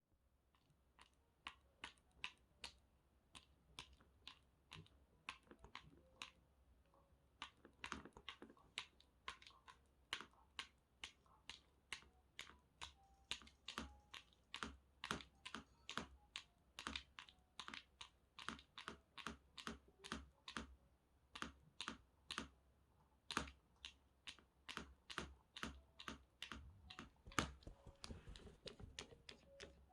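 A cat pawing rapidly at something, its paws making a long run of sharp tapping clicks, roughly two a second in irregular flurries.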